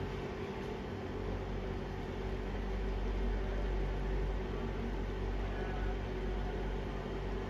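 Steady hum and whir of a running induction cooktop, its coil and cooling fan giving an even drone with a few fixed tones.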